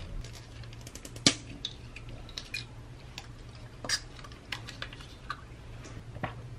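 Irregular small clicks and taps of supplement containers being handled on a stone countertop: a cap being twisted off and bottles picked up and set down. There are a few sharper knocks about a second in, near four seconds and near the end.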